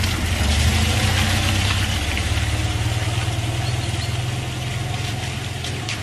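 An engine idling: a steady low rumble under a broad hiss, easing slightly in level over the few seconds.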